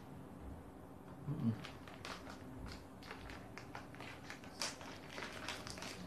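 Crispy noodle snack being chewed: a run of small, sharp crunches, with a brief hum about a second and a half in.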